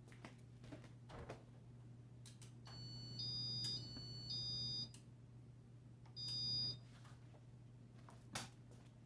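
Three short high electronic beeps from a Casablanca InteliTouch fan control, the first stepping in pitch, as the fan is set to reverse and speed 1. A few light clicks and a steady low hum lie under them.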